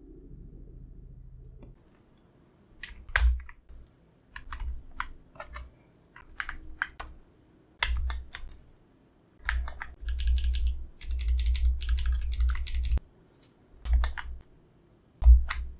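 Typing on an Akko ACR Pro Alice Plus mechanical keyboard: scattered short bursts of keystrokes with a low thock under each, and a quicker unbroken run of typing about two-thirds of the way through.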